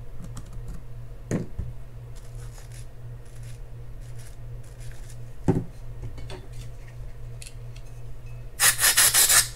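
Fine screwdriver and wire brush scraping and scratching at a seized metal washer in a fishing reel's spool, with two sharp knocks. Near the end an aerosol can sprays through its straw into the spool in a loud hiss of about a second.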